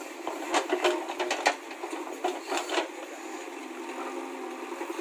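JCB 3DX backhoe loader's diesel engine running steadily while the backhoe bucket digs, with a run of sharp knocks and scrapes as it bites into stony soil about half a second to a second and a half in, and a few more around two to three seconds in.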